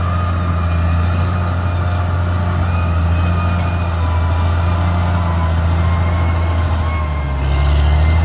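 Caterpillar D6R XL bulldozer's diesel engine running steadily, with a faint high whine above it. About seven seconds in, the engine note drops lower and grows louder.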